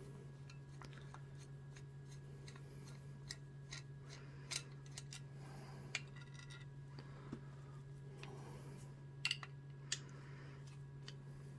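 Faint, scattered metallic clicks and scrapes of a screwdriver working narrow-slotted screws in an old drill's metal motor housing, with a quick pair of clicks about nine seconds in, over a steady low hum.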